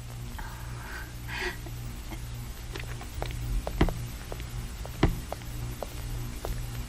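A steady low hum with scattered sharp clicks and knocks, irregular and growing more frequent about halfway in. The loudest knock comes about five seconds in.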